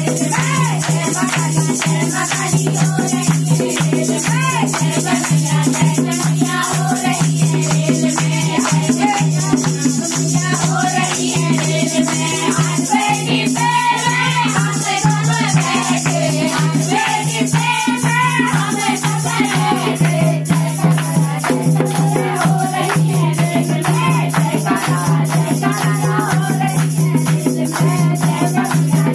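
Women singing a Hindu devotional bhajan to the Mother Goddess, kept to a fast, even beat of hand claps and rattling percussion over a steady low hum.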